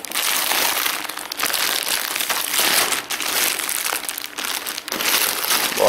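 Clear plastic bags around folded jeans crinkling and rustling as they are handled and shifted, with a few short breaks.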